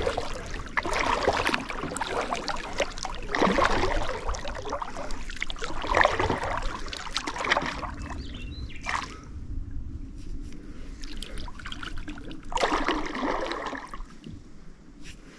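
Kayak paddle strokes: the blades dip and pull through the water in splashing swishes every two to three seconds, with water trickling off the paddle. The strokes pause for a few seconds past the middle, then one more stroke comes before it quietens.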